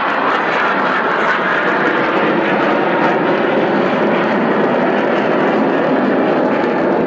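A BAE Hawk T2 jet trainer's Rolls-Royce Adour turbofan heard in flight: a loud, steady rush of jet noise with no sudden changes.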